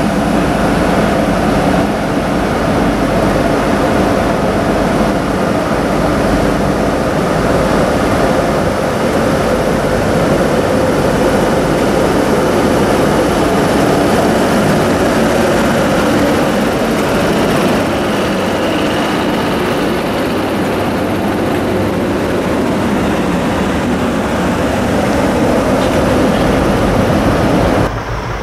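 Freightliner Class 90 electric locomotive passing close by, a loud steady running noise that holds without a break, then cuts off abruptly near the end.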